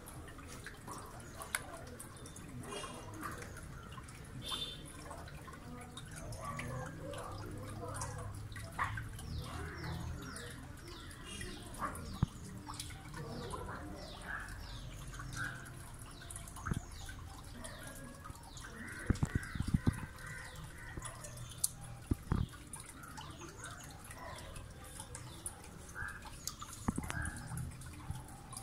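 Aquarium water dripping and lightly splashing as an oscar fish strikes at food held at the surface, with scattered sharp clicks, a cluster of them about two-thirds of the way in.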